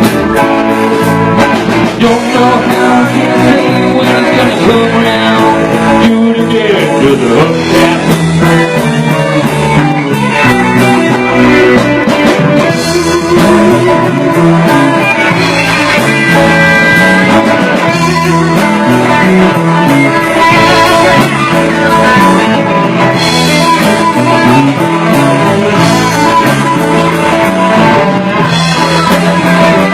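Live band playing a guitar-driven rock song, loud and without a break.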